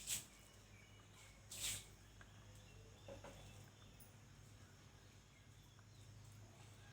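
Eating sounds: two short, hissy bursts about a second and a half apart, with a softer one a little later, over faint bird calls outdoors.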